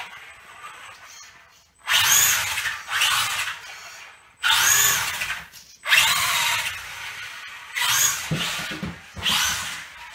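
Electric RC car's motor and Traxxas Stampede gearbox whining in about five short bursts as the car speeds up and slows down, the pitch rising and falling with each burst of throttle.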